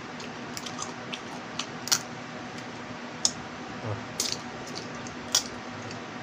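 Small cooked crab shells cracked and picked apart by hand, a handful of sharp little clicks and cracks spread irregularly, over a faint steady hum.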